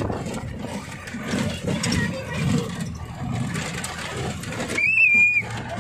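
Safari jeep's engine running as it bumps along a rough, muddy dirt track, heard from on board. About five seconds in, a short high squeal lasts about half a second.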